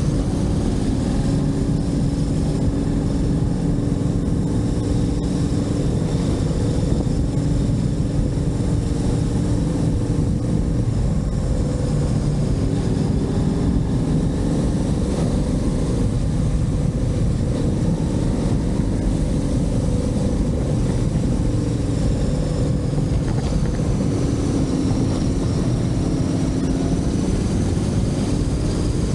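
Motorcycle engine running steadily at riding speed, its pitch drifting only slightly, over a constant low rumble.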